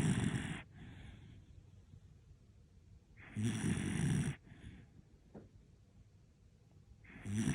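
An old miniature dachshund snoring heavily, like a grown man. Three long rasping snores come about every three and a half seconds: one right at the start, one about three seconds in, one near the end. Each is followed by a fainter short breath.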